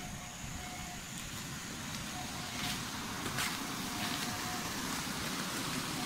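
Steady rushing of a waterfall, growing slowly louder, with a few sharp clicks about halfway through.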